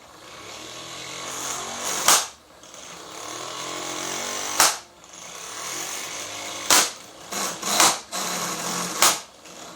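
12V corded impact wrench running on a lug nut: its motor whirs while the hammer lands five loud booms a second or two apart. It fails to break the nut loose; the user judges it far short of its rated 280 foot-pounds, more like 50.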